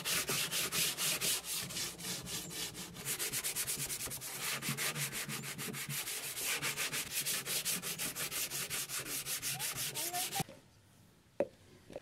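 Waterproof silicon carbide sandpaper rubbed by hand over the stained plastic wall of a fridge box, in quick even strokes about five a second, scouring off algae and grime. The rubbing stops about ten seconds in, followed by a single sharp tap.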